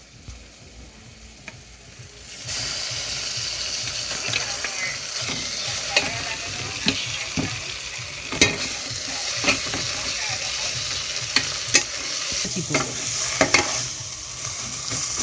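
Onions and ground ginger-garlic-pepper paste sizzling in oil in a saucepan while being stirred, with clicks and scrapes of the spoon against the pan. The sizzle jumps up about two and a half seconds in and then holds steady.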